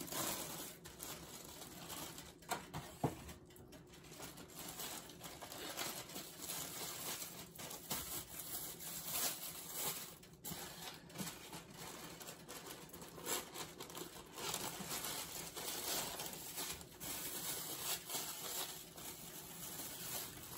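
Thin plastic deli bag crinkling and rustling irregularly as slices of ham are pulled out of it.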